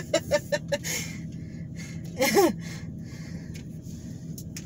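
A person laughing in a quick run of short bursts, then a single short vocal sound about two seconds in, over the low steady hum inside a car.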